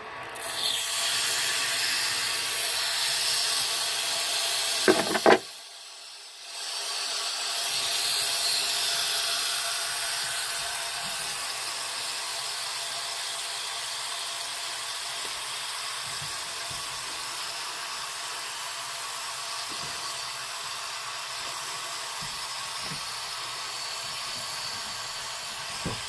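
Water hissing and rushing steadily through a water heater's drain valve that will not shut off. The flow drops out for about two seconds a little over five seconds in, then starts again.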